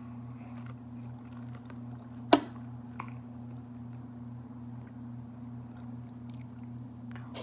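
Quiet chewing of sticky raw honeycomb and bread, with faint wet mouth clicks and one sharp click about two seconds in, over a steady low hum.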